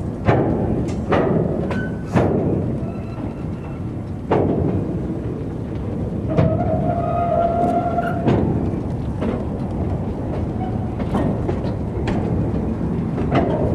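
Empty grain hopper wagons rolling slowly past with a steady rumble and repeated loud clanks and bangs from the wagons and couplings. A pitched squeal, likely from a wheel or brake, lasts over a second about six seconds in.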